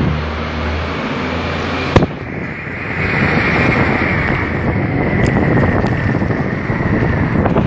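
Wind buffeting the microphone of a camera carried on a moving bicycle, with a sharp knock about two seconds in. A steady, slightly falling high whine joins about three seconds in.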